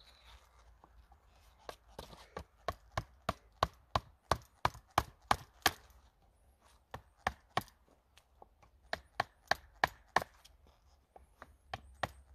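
A chisel struck with a log-round mallet, cutting down the end of a wooden stick: sharp wooden knocks about three a second in a long run, a pause of about a second, a second run, then a few more near the end.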